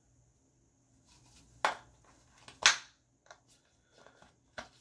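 Handling of a plastic water bottle in a mesh bottle sleeve: two sharp clicks about a second apart, then a few lighter ticks.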